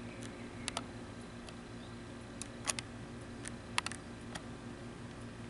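Handling noise on a handheld camcorder: irregular small clicks and ticks, about ten of them with a pair close together near the middle, over a steady low electronic hum.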